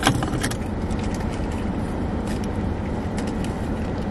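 Steady low rumble of the parked car running, heard from inside the cabin. Over it come short clicks and rustles of a leather purse and wallet being handled, the loudest a sharp click right at the start.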